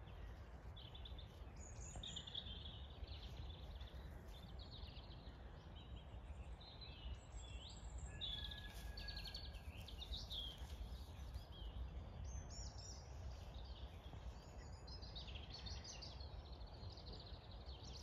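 Faint outdoor birdsong: small birds chirping and calling at scattered moments over a low steady rumble.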